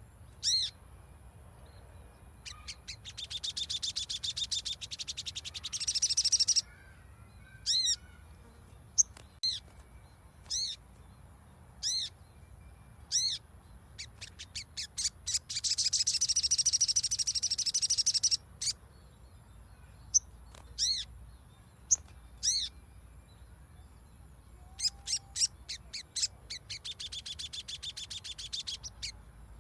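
A sogon (sogok ontong) singing: sharp, high single chirps repeated every second or so, broken by three long, fast rattling trills starting about three, fifteen and twenty-five seconds in. It is a lure song, played to set a caged sogon singing.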